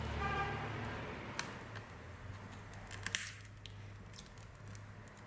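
A pry tool working under the edge of a glued Nokia 7 Plus screen: a few faint clicks and scrapes, the sharpest about three seconds in, over a low steady hum.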